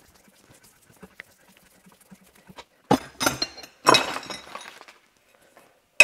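Steel hand tools clattering on a metal-strewn workbench: two jangling bursts as a long bar and spanners are set down and picked up about three and four seconds in, then a sharp metallic clink right at the end as a large spanner meets the injector removal tool.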